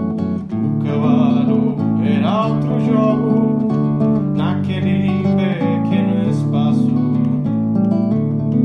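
A man singing to his own guitar, strummed and plucked chords on an acoustic-electric guitar throughout; the voice comes in about a second in.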